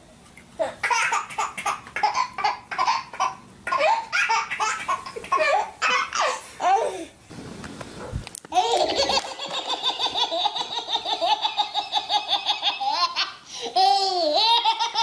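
Babies laughing in repeated giggles and belly laughs. After a short break about eight seconds in comes a long fit of rapid, pulsing laughter.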